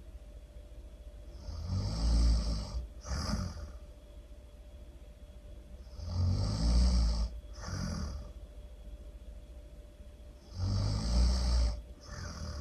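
A person snoring loudly in a slow, even rhythm. There are three snores about four and a half seconds apart, each a long snore followed closely by a shorter second one.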